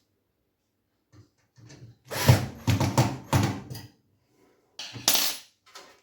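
Tools and metal parts clattering and knocking in a series of sharp rattles, with a second short clatter near the end.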